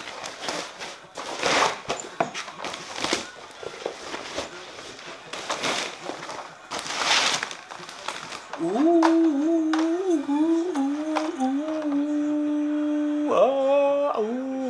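Rustling and scraping of a padded carry bag and its wrapping as a ring light is pulled out. From about halfway, a man hums a wavering tune, holds a long steady note, and then jumps up in pitch near the end.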